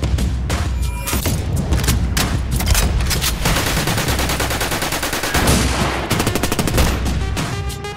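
Designed gunfire sound effects: rapid volleys of automatic-weapon fire mixed with single handgun shots, with a very fast continuous burst a little past halfway through, over a deep low rumble.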